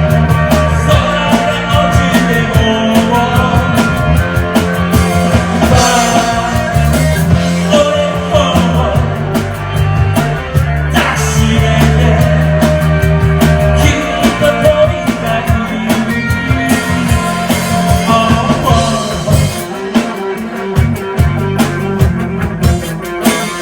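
Rock music played by a band: electric guitar over a steady bass line and a drum beat, loud and continuous.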